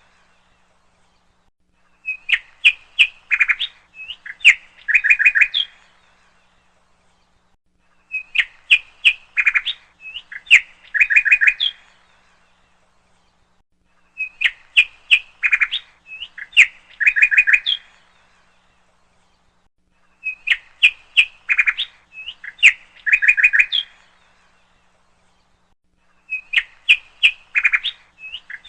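A bird chirping in bursts of quick, high notes, each burst made of two runs of chirps. The same burst comes back five times, about every six seconds, with silence between.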